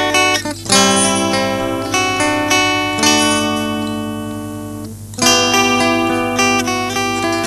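Instrumental music: acoustic guitar strumming chords, one chord left to ring and fade for about two seconds before the strumming picks up again.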